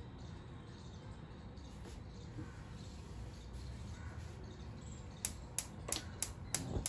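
Steady low background hum, then a quick run of six sharp clicks about five seconds in, roughly three a second.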